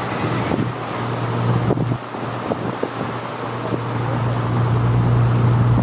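Cargo ship's machinery running during berthing: a steady low drone that grows louder toward the end, with wind buffeting the microphone.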